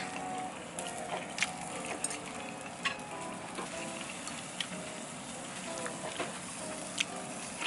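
Meat sizzling on a charcoal yakiniku grill, a steady frying hiss, with three sharp clicks of chopsticks against a ceramic rice bowl.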